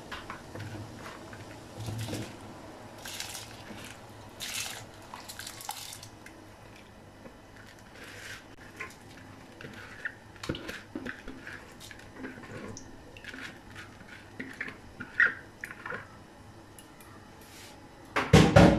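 Soaked rice poured from a plastic bowl into a pan of boiling water: soft hissing splashes, then scattered small ticks and drips as the last grains fall and the water bubbles. A louder clatter comes near the end.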